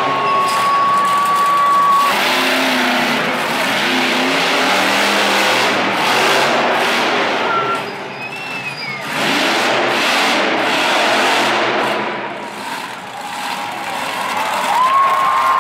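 Bigfoot monster truck's engine revving loudly through a freestyle run of jumps, easing off briefly about halfway through and again near the end.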